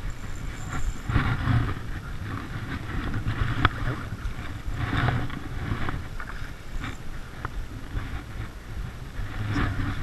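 Rustling and rumbling of a wet nylon rain jacket rubbing at the microphone as an angler cranks a spinning reel, swelling every second or two, with a sharp click about three and a half seconds in.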